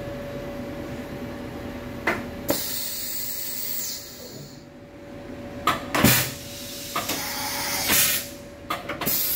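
Machine-shop ambience: a steady hum with scattered knocks and clicks and several bursts of hissing. The longest hiss starts about two and a half seconds in and lasts about two seconds.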